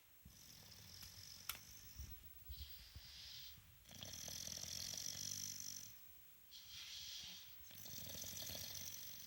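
Pit bull dog snoring in its sleep: a low rattling snore roughly every three seconds, each followed by a shorter hissing breath. A single faint click about a second and a half in.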